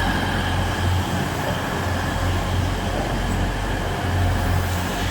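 A train at the station platform, its engine running steadily with a low hum that pulses slowly, and a faint high whine over it.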